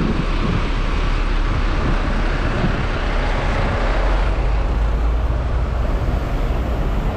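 Busy city street traffic: a steady low rumble of vehicle engines under road noise.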